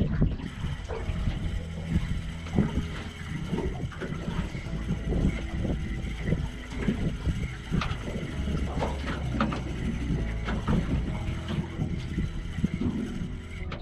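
Water lapping and slapping against a small boat's hull, with scattered knocks and clicks of fishing gear on deck, over a low steady hum.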